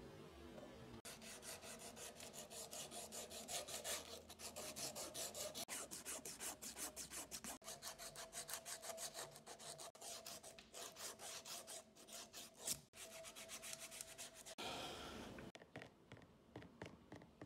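A wooden screwdriver handle being sanded by hand with a strip of sandpaper: quick back-and-forth rubbing strokes, several a second. The strokes stop about fifteen seconds in, followed by a brief rustle and a few light taps.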